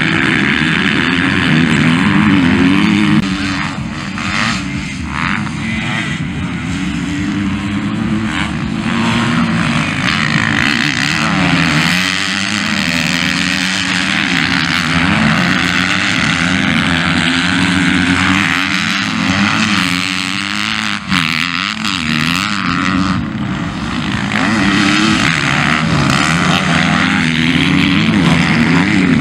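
Motocross dirt bikes racing on a dirt track, their engines revving up and down as the riders work the throttle through the turns, with more than one bike heard at once.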